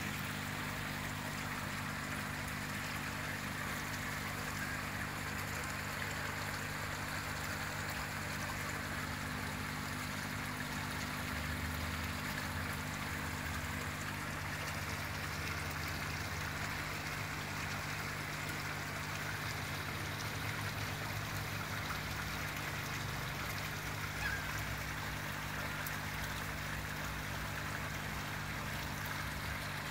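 Steady running, trickling water with a constant low hum underneath.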